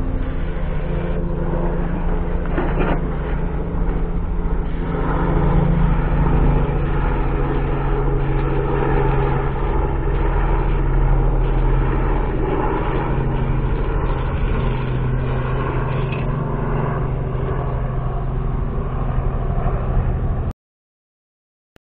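A steady engine-like drone runs throughout, with the hiss of an aerosol can spraying underbody coating onto the underside of the van's rear sill. The sound cuts off suddenly near the end.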